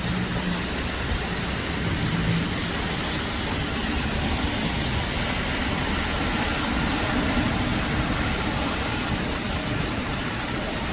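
Heavy thunderstorm rain pouring down: a steady, even hiss.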